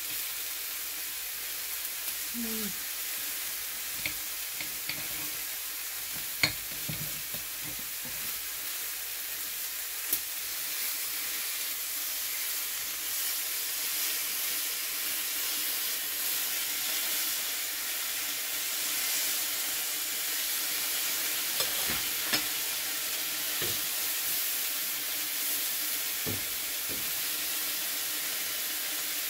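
Pork chops and sausages frying in a pan with a steady sizzle, broken by a few sharp knocks about 6, 10 and 22 seconds in.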